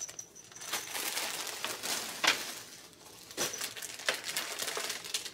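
Plastic bags and paper rustling and crinkling, with light clicks and knocks, as items are handled in a cardboard box; the sharpest click comes a little over two seconds in.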